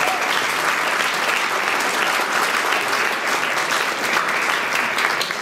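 Audience applauding: loud, steady clapping from a roomful of people.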